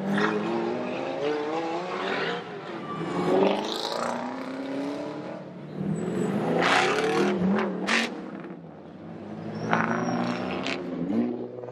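Sports cars accelerating hard away from a start line one after another, each engine revving up with a rising pitch as it passes.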